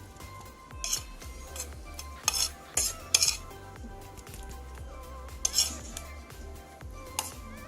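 Metal cutlery scraping and clinking against a plate in several short strokes while eating.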